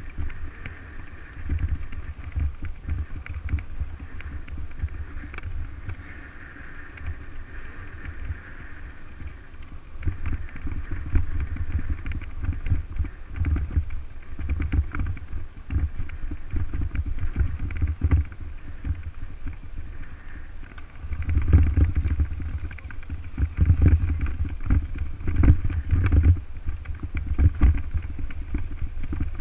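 Wind buffeting and rumbling on the microphone of a bike-mounted camera as the mountain bike rides over a rough gravel track, with jolts and rattles from the bumpy surface. It gets louder and rougher in the last third.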